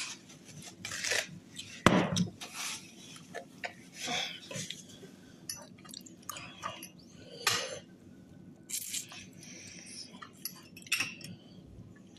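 Eating utensils clinking and scraping on a plate in irregular short clicks, with mouth sounds of eating in between.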